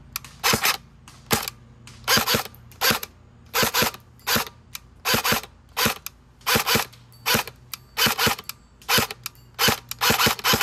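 Stock Airsoft SCAR-L electric gun (AEG) firing single shots on semi-auto with a suppressor fitted, about one to two shots a second, some fired in quick pairs. Each shot is a sharp crack with the gearbox cycling, and the cycle is sluggish as the gun comes stock.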